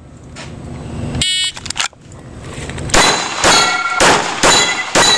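Shot timer beep a little over a second in, then a string of five pistol shots about two a second. Steel targets ring after the hits.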